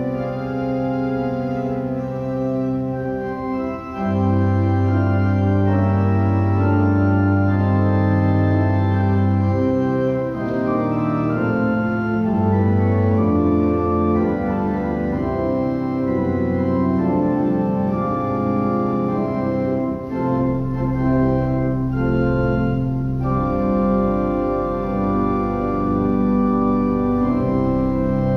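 Organ playing slow, held chords over low bass notes; the sound grows fuller and louder about four seconds in. It is the postlude played at the close of a church service.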